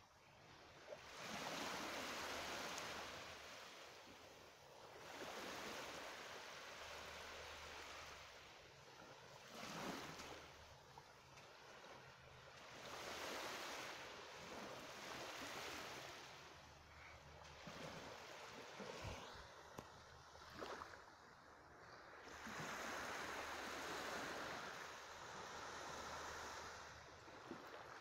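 Small waves lapping on a sandy shore, the wash swelling and fading about every four to five seconds.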